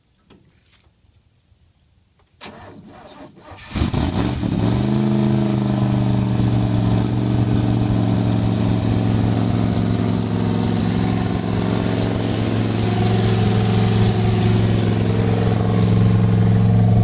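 A 1966 Chevrolet C10 pickup's engine cranked by its starter for about a second, catching with a quick rev that drops back, then settling into a steady idle. It is the truck's first start of the day, a cold start.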